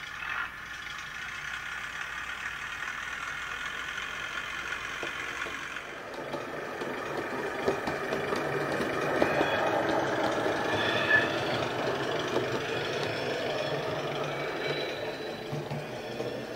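Sound decoder in a Hornby OO gauge Ruston 48DS model shunter playing its recorded diesel engine sound through a tiny onboard speaker. About six seconds in it grows louder and busier as the model runs round a curve, with the decoder's flange squeal effect (function F9) adding a few brief high squeals.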